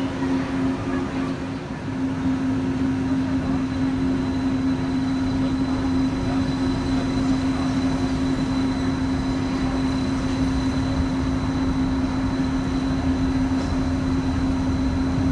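Steady electrical hum from the Disneyland Mark 7 monorail's onboard equipment while the train stands at the station, with a faint high whine and a low rumble underneath. The hum grows a little louder about two seconds in.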